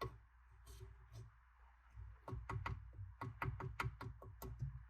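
A quick run of light clicks or taps, about five a second, for a couple of seconds in the second half, over a low steady hum.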